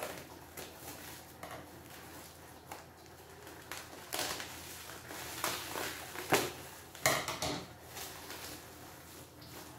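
Plastic wrapping on a potted strawberry seedling rustling and crinkling as it is cut open with scissors, with a handful of sharp snips and crackles between about four and eight seconds in.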